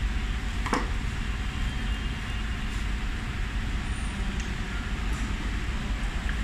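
Steady low workshop rumble, with one sharp metallic click about a second in and a few faint ticks later as metal machine parts are handled.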